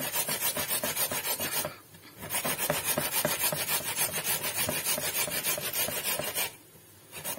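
Carrot being grated on a flat metal hand grater, a quick rasping stroke after stroke. The grating stops briefly about two seconds in and again near the end.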